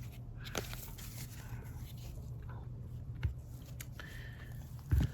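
Trading cards being handled and set down on a table: scattered soft taps and rustles over a low steady hum, with a louder thump near the end.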